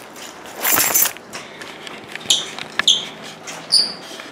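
A brief rustling swish, then a few light clinks and clicks, each with a short high ring, like small hard objects knocking together.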